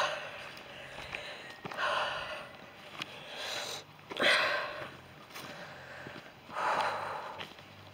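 A man breathing hard from walking, four breathy puffs a second or two apart.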